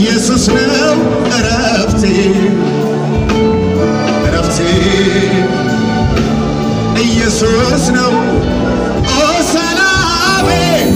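Live Ethiopian Protestant worship song (mezmur): a band with amplified singing, played continuously and loudly, heard from within the audience in a large hall.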